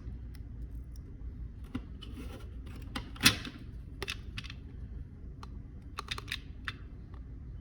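Scattered small clicks and taps of hands and small tools handling an opened iPhone on the workbench, with one louder clack about three seconds in.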